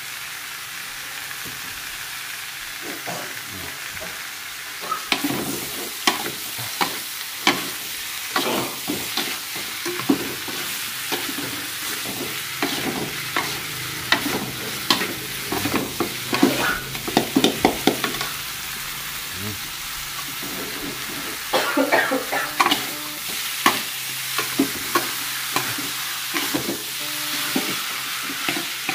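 Sliced bamboo shoots frying in a metal wok with a steady hiss, while a metal spatula stirs and tosses them, scraping and clacking against the pan in quick runs that start about five seconds in and pause briefly about two-thirds of the way through.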